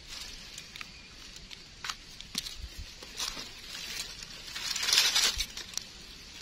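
Dry leaf litter and soil crackling and rustling as a cluster of bitter bolete mushrooms is worked loose and pulled from the ground by a gloved hand. Scattered small clicks, with a louder rustle about five seconds in as the cluster comes up.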